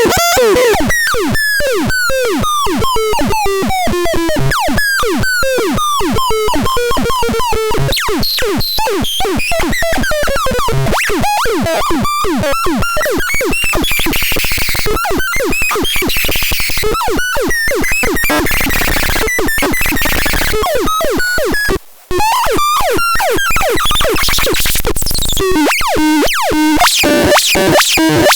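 Electronic synthesizer sound demo: a rapid, dense stream of short notes that each fall in pitch. A noisier hissing stretch comes in the middle, and the sound cuts out briefly about two-thirds of the way through.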